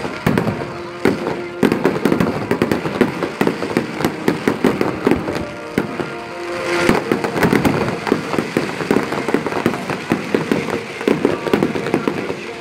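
Fireworks display with many aerial shells bursting and crackling at once: a dense, rapid run of pops and cracks, with a louder burst about seven seconds in.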